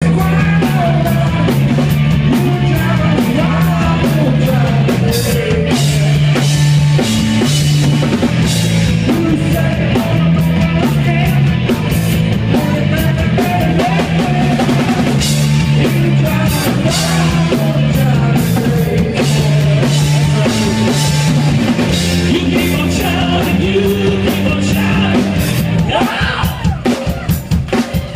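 Live rock band playing loudly: drum kit, electric guitar and bass guitar, with singing. Near the end the music breaks into a run of separate hits.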